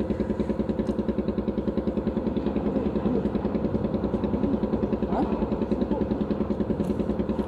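An engine idling steadily nearby, with an even, rapid beat of about ten pulses a second.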